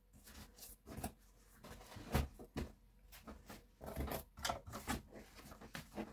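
Cardboard box being handled: scattered rustles, scrapes and light knocks as clothing is pressed down into it and the flaps are folded over.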